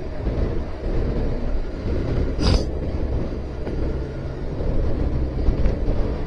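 Yamaha FZS V3 motorcycle cruising at highway speed: its 149 cc single-cylinder engine runs under a steady rush of wind on the microphone and road noise. A short, sharp burst of noise comes about two and a half seconds in.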